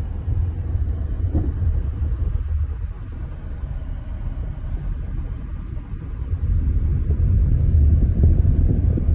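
Low road and engine rumble of a car driving down a mountain road, steady and getting louder near the end.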